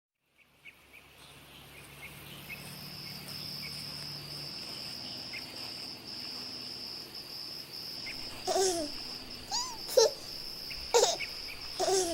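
Steady high-pitched trilling of night insects, fading in over the first couple of seconds. From about two-thirds of the way in, five short squealing vocal sounds, like a small child's babbling, cut in over it and are the loudest thing heard.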